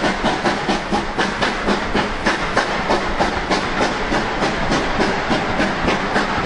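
GWR Manor class two-cylinder 4-6-0 steam locomotive working hard as it pulls away with its train, with an even rhythm of sharp exhaust beats at about four a second. The coaches' wheels rumble over the rails as they roll past.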